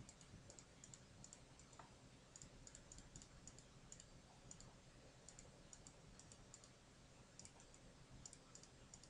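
Faint computer mouse clicks, many short ticks in irregular clusters, over near-silent room tone.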